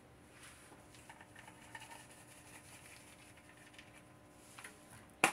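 Garlic pepper shaken from a shaker bottle over a pan of shrimp in olive oil: a faint, irregular patter of seasoning, with one sharp click at the very end.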